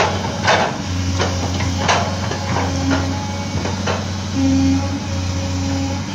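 The diesel engine of a tracked excavator bogged down in swamp mud, running with a steady low drone. In the first four seconds there is a string of short sharp knocks, and a higher steady tone comes in around four and a half seconds and again near the end.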